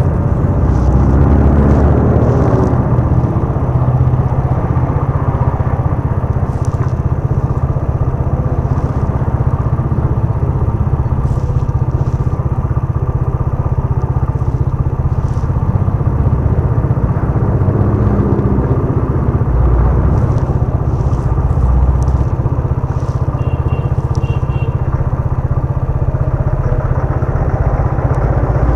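Motorcycle engine idling steadily, with traffic passing through the intersection in front of it.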